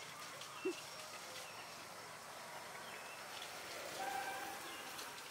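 Faint rural outdoor ambience with scattered distant bird calls. A single short low sound about two-thirds of a second in, and a brief held call near the end.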